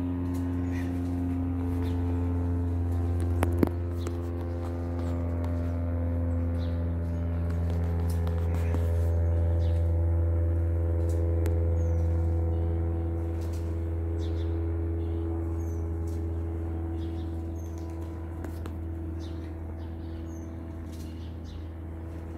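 Small single-engine propeller plane flying over, its engine drone swelling to its loudest about ten seconds in and then slowly fading. Birds chirp now and then, and there is one sharp click about three and a half seconds in.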